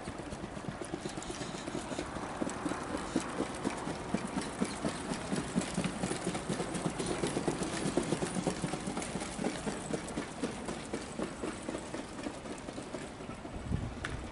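Hoofbeats of two harness trotters pulling sulkies on a sand track, a quick run of hoof strikes that grows louder as the pair pass close by, then eases as they move away. A low rumble sits under it throughout.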